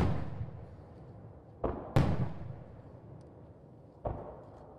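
Aerial firework shells bursting: four bangs, each trailed by a long echoing rumble that fades away. The loudest come at the start and about two seconds in, with softer ones just before the second and about four seconds in.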